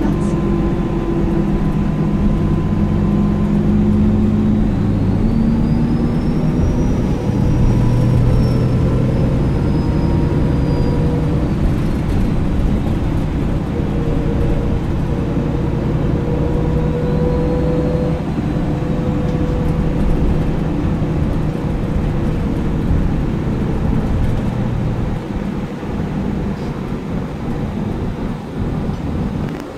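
MAN Lion's City Ü (A20) city bus under way, heard from inside the rear of the passenger cabin: a steady diesel engine and road noise. The engine tone rises and drops in steps several times and becomes weaker and rougher near the end.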